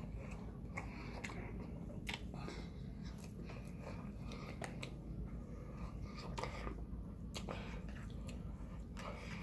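Close-up eating sounds of fried chicken wings being bitten and chewed, with scattered small crunches and mouth clicks every second or so over a low steady hum.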